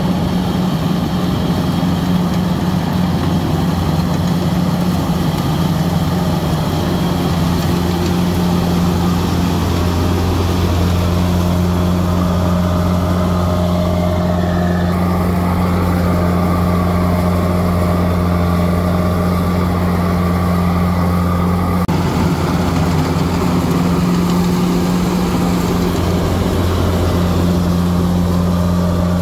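Kubota DC-93 combine harvester's diesel engine running at a steady speed, a deep, even drone throughout.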